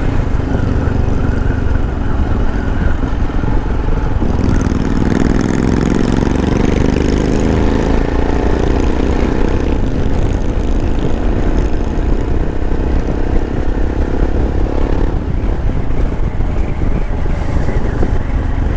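Royal Enfield Himalayan's 411 cc air-cooled single-cylinder four-stroke engine running under way, over a heavy low rumble. From about four seconds in, the engine note climbs slowly as the bike pulls, then eases off about fifteen seconds in.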